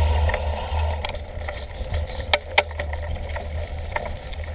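Mountain bike rolling along a dirt track, with wind rumbling steadily on the camera's microphone. Two sharp clicks a quarter second apart, a little past halfway, from the bike jolting over the ground.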